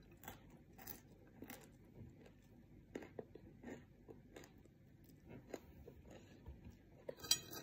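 A person chewing a mouthful of fried rice and crispy fried anchovies: soft, irregular crunches and mouth clicks, with a sharper click near the end.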